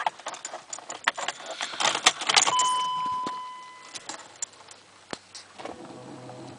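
Car keys jangling and clicking at the ignition of a BMW 2.5 TDS, then a single chime that rings and fades over about a second and a half as the ignition is switched on. A faint low hum starts near the end.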